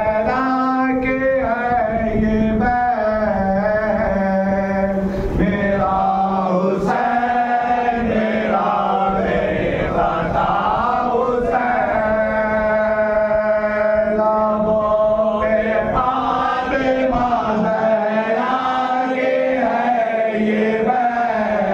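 A noha, a Shia mourning lament, sung by a male reciter at a microphone with a group of men chanting along in unison in held, wavering notes, over the rhythmic thud of hands beating on chests (matam).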